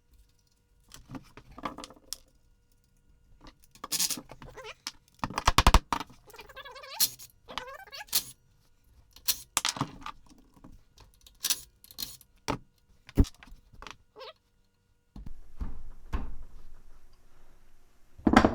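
Hand tools and loose metal parts clinking and clanking in a string of separate knocks and jingles, some ringing briefly, as an ATV's rear brake assembly is taken apart; a rougher stretch of scraping noise comes near the end.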